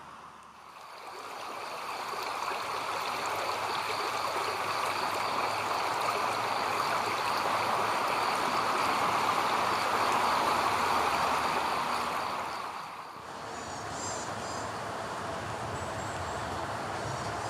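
A stream of water running with a steady rush. About thirteen seconds in it drops abruptly to a softer flow, with a few faint high chirps.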